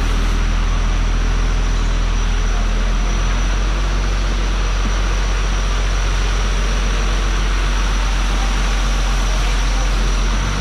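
Steady low-pitched machine hum with an even hiss over it, holding constant throughout and easing off at the very end.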